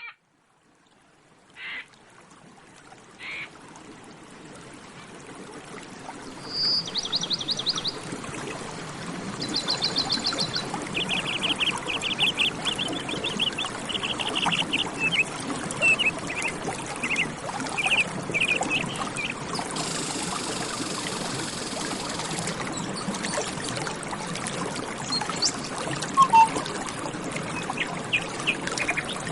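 Running water with small birds singing. The water fades in over the first several seconds, two short chirps come early, and about six seconds in the birds begin rapid trills and repeated chirps.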